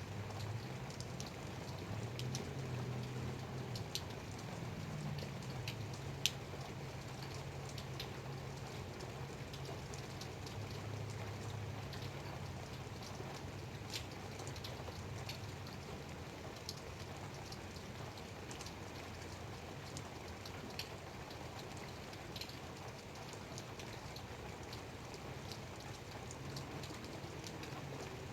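Light rain, with scattered individual drops ticking sharply on a surface over a steady patter, and a low steady hum underneath.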